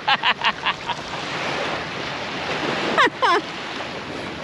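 Small waves washing up and lapping on a sand beach, with wind on the microphone. A run of short high chirps sounds in the first second, and two falling calls come about three seconds in.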